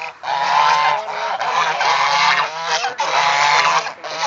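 A flock of domestic geese honking loudly, many calls overlapping almost without a pause.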